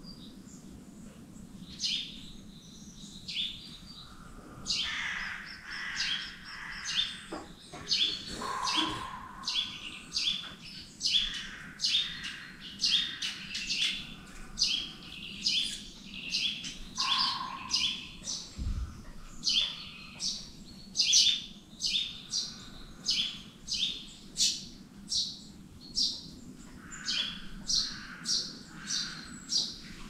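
Birds calling and chirping: a long run of short, sharp notes about twice a second, with other chirps mixed in, over a faint low steady hum.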